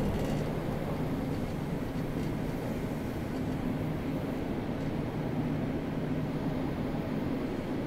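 Tokyo subway train running at a steady pace: a constant rumble with a low, even hum.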